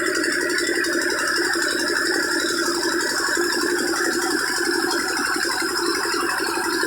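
Old Petter diesel engine running steadily, driving an atta chakki (stone flour mill), with a dense, fast, even rattle.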